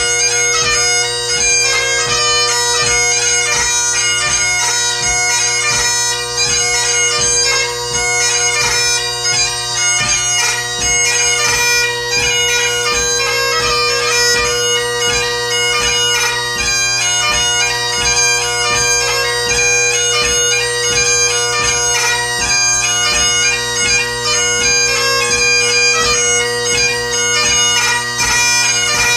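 Great Highland bagpipe played solo in a march, strathspey and reel set: steady drones under a chanter melody that changes notes quickly, with no break.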